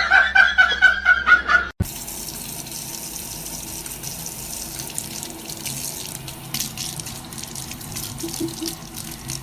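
For about the first two seconds, a loud, quickly repeated pitched sound. It cuts off abruptly, and then water runs steadily, like a tap running into a sink.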